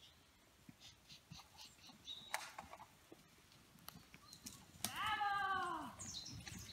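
A sheep bleats once, a single drawn-out call about five seconds in, with faint bird chirps before it.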